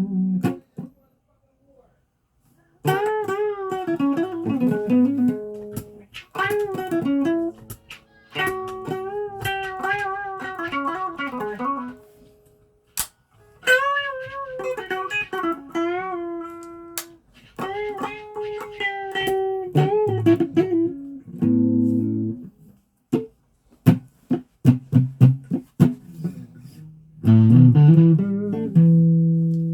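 Guitar played with a pick: phrases of single notes with wavering vibrato and bends, broken by short pauses. About two thirds of the way through comes a run of short, sharp picked clicks, and lower held notes follow near the end.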